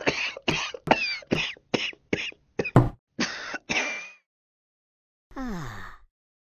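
A person coughing hard, a run of rough coughs that come shorter and quicker, then, after a pause near the end, one long groan falling in pitch.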